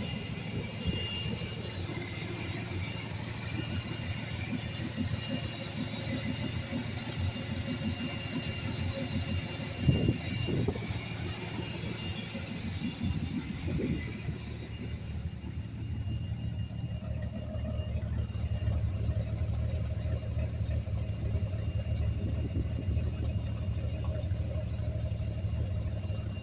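1982 Ford F-150's 300 cubic-inch inline-six, fed by a Quadrajet carburetor, running steadily. The owner says it has a bad vacuum leak around the carburetor. There is a thump about ten seconds in, and about halfway through a high hiss fades out and the engine note settles steadier.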